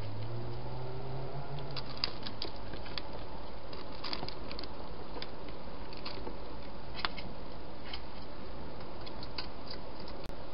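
Wild hedgehogs eating: irregular small clicks and crunches of chewing, scattered through a steady hiss of the trail camera's microphone.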